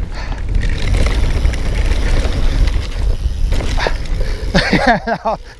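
Wind buffeting the microphone and tyres rumbling over grass as a mountain bike rolls fast down a hillside, with a single sharp knock a little before four seconds in. Near the end a man's voice calls out briefly.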